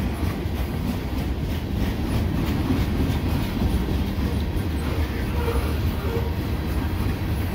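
CN freight train's boxcars and covered hoppers rolling past at speed close by: a steady rumble of steel wheels on rail with a clickety-clack.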